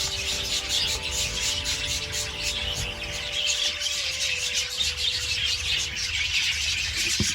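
Budgerigars chattering, a continuous flock twitter of many quick chirps and warbles.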